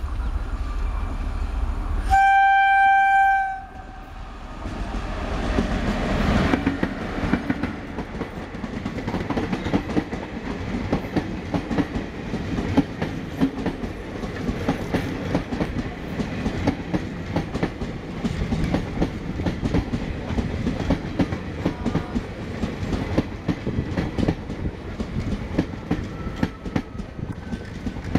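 WAP-4 electric locomotive passing close and sounding its horn once, a single loud tone held for just over a second, followed by the passenger coaches running past with a steady rumble and dense clicking of wheels over the track.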